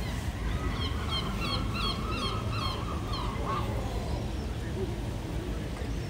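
Gull calling: a quick series of about seven sharp, honking calls lasting about two and a half seconds, over a steady low rumble of town background.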